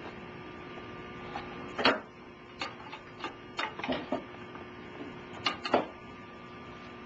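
Lineman (1050) cable lasher being turned around on a bench: scattered knocks and clunks of the machine being handled, the two loudest about two seconds in and late on, over a steady electrical hum.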